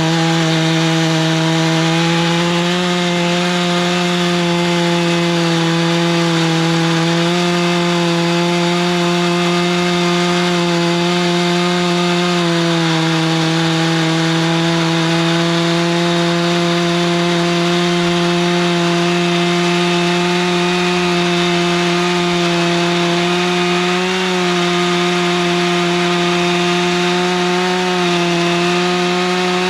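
Stihl MS 661 two-stroke chainsaw running steadily under load as it rips lengthwise through a beech log on a chainsaw mill. The engine note holds nearly level, dipping slightly about twelve seconds in and wavering briefly near the end.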